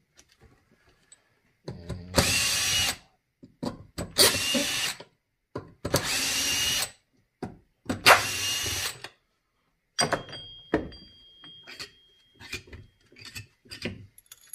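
Cordless drill running in four short bursts of about a second each, its bit pressed into the plastic cell holder of a lithium battery pack to take it apart. Light clicks and clatter of the pieces being handled follow.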